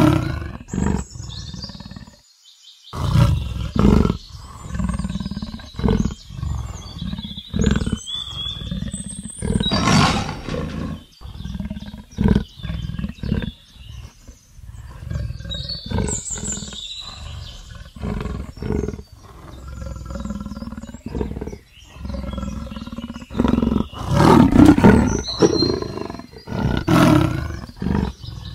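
Leopard growling and roaring in a long run of short, rough calls, each a second or two long, with brief gaps between them. The loudest calls come near the middle and again near the end.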